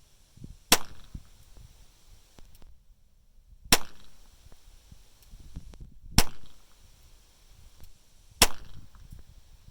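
Four single shots from a Ruger .22 Hunter pistol firing .22 rimfire, each a sharp crack, spaced about two and a half to three seconds apart.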